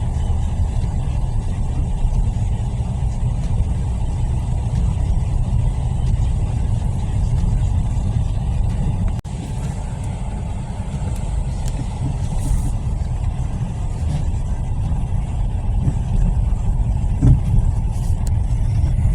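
Steady low rumble of a car driving on a snow-covered road, engine and road noise together, with a brief dropout about nine seconds in.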